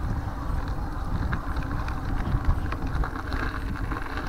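Wind rumbling on the microphone of a bicycle's handlebar camera while riding, with scattered light clicks and rattles from the bike.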